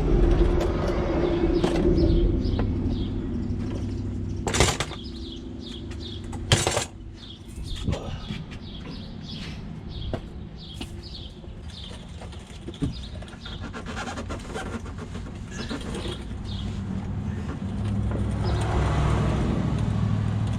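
A vehicle going by, its low hum fading out over the first few seconds and another building again near the end. Small birds chirp in the background, with two sharp knocks about four and a half and six and a half seconds in.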